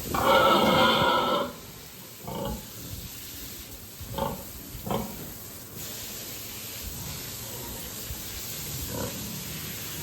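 Domestic pigs calling: one loud, drawn-out pitched call lasting over a second at the start, then short grunts at intervals.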